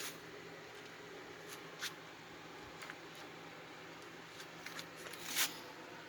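Faint scattered clicks and rustles of hands handling small objects on a workbench, with a louder brief rustle about five seconds in.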